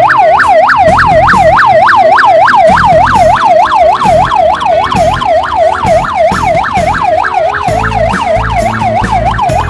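Electronic siren in a fast yelp, sweeping up and down about four times a second, with a low rumble underneath.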